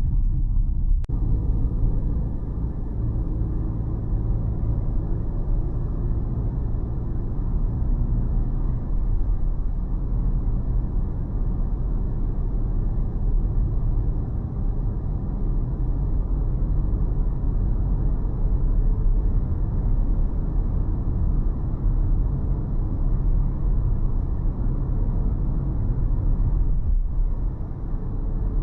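A car driving along a road: steady low rumble of road and engine noise, with a single click about a second in.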